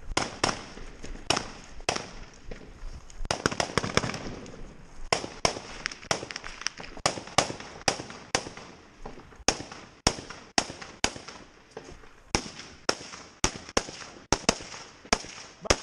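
Small-arms gunfire in a firefight: irregular single rifle shots, about two or three a second, with a quick cluster of shots about three to four seconds in.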